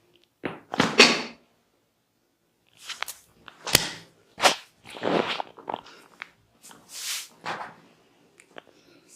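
Hands striking and rubbing over skin during a massage: an irregular series of short slaps and swishes, the loudest about a second in.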